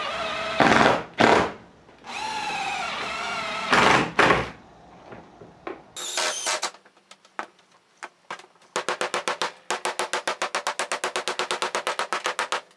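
Cordless Makita impact driver driving screws through aluminium sheet into a wooden camper door, twice. Each time the motor whines up, then rattles with sharp impacts as the screw seats. After a few light clicks comes a quick, even run of hammer taps on the sheet's edge, about six a second, from about nine seconds in.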